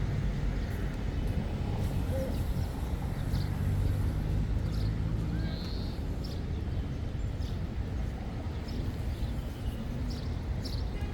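Outdoor street ambience: a steady low rumble of traffic, with short high ticks and a few brief chirps here and there.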